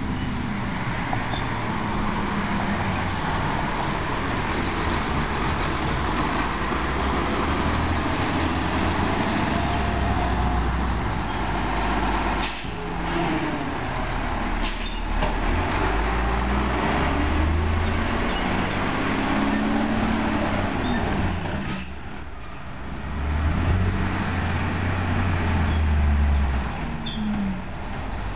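Diesel engine of a Crane Carrier garbage truck with a Heil rear-loader body, pulling away and revving up and settling several times, with a faint high whine rising and falling along with it. Short sharp air-brake hisses come about halfway through and again after about two-thirds.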